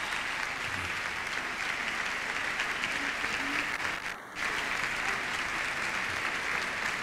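Large theatre audience applauding steadily, with a brief dip in the sound a little past the middle.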